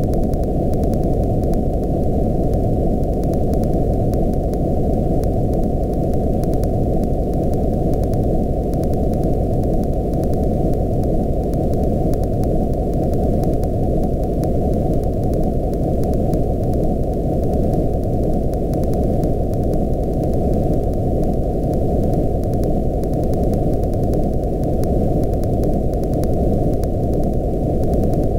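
Steady electronic noise, filtered so that only the low part remains: a deep, even rushing rumble that stops sharply above the low mids, with faint fine ticking up high.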